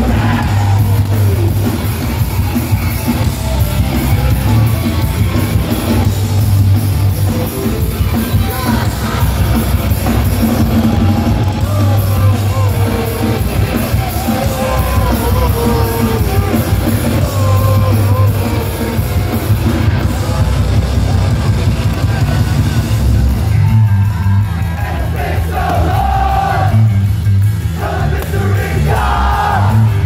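A hardcore punk band playing live through a loud PA: distorted electric guitars, bass, drums and shouted singing, with crowd noise mixed in. The music thins out briefly about three-quarters of the way through, then comes back in full.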